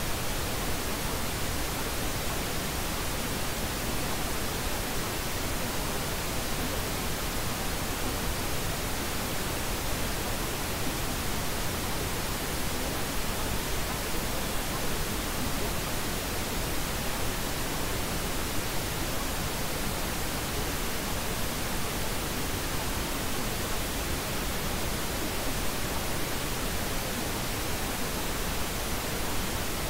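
Steady, even hiss of pink noise, the masking layer of a subliminal affirmation track.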